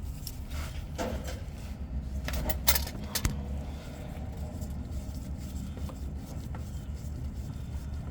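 A few sharp metal clinks of a filter wrench on an Allison transmission spin-on filter, over a steady low hum.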